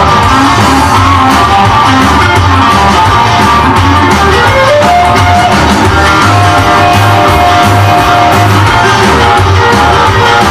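Rockabilly record playing loud: guitar-led music over a steady bass beat, with a long held note in the middle.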